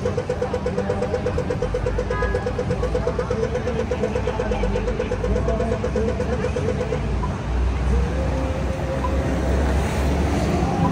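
City street traffic rumbling, with a rapid electronic ticking over it that stops about seven seconds in. A steady tone comes in about eight seconds in.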